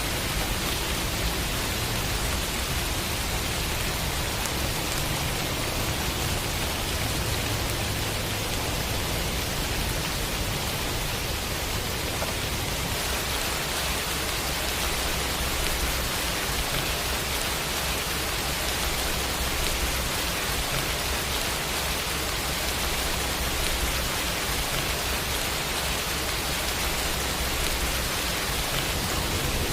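Rain sound effect: a steady, even hiss of rainfall with a low rumble underneath.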